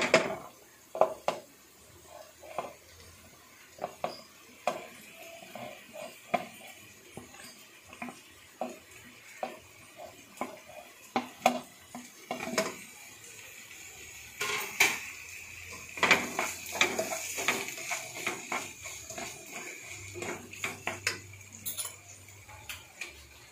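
Wooden spatula scraping chopped tomatoes off a ceramic plate into a nonstick pan, then stirring them into the fried masala paste, with irregular clinks, knocks and scrapes against the plate and pan. A faint steady hiss comes in about halfway.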